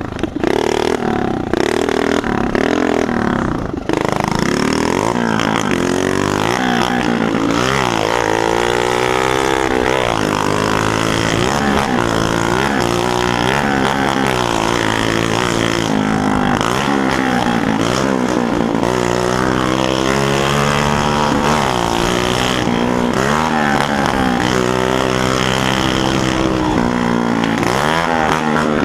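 Two-stroke mobilete moped engine revving up and dropping back over and over under way, its pitch rising and falling every second or two. It runs through a broken exhaust, which the rider says makes it 'sing' more than before.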